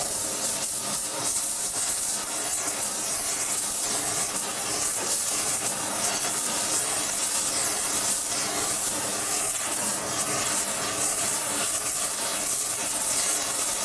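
Oxy-fuel torch flame hissing steadily at an even level as it heats a motorcycle cylinder head.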